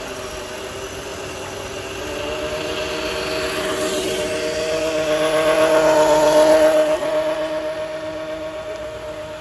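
Scale RC crawler truck driving past, its electric motor and gears whining: the whine swells to a peak about six to seven seconds in, then fades away.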